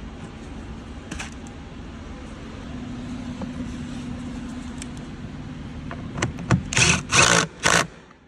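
A steady low hum, then near the end four or five short, loud bursts in quick succession from a cordless power tool being triggered.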